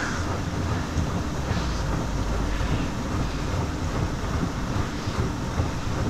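Steady wind noise on the microphone, an even rush with no distinct events.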